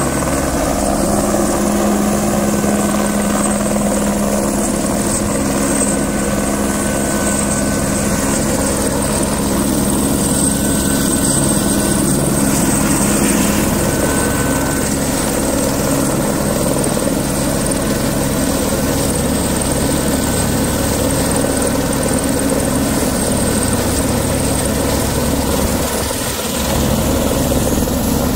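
Helicopter hovering low overhead with a steady, loud rotor and engine noise while it lifts a small tractor on a long sling line.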